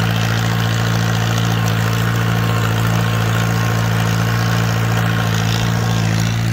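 Old farm tractor's engine running at a steady speed while the tractor drives along, a low, even engine note.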